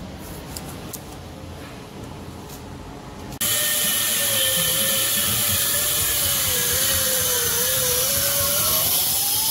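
Pneumatic cut-off wheel cutting a notch into a steel chassis frame rail. It starts suddenly about three and a half seconds in and then runs loud and steady, its whine sagging as the wheel bites into the metal and climbing again near the end.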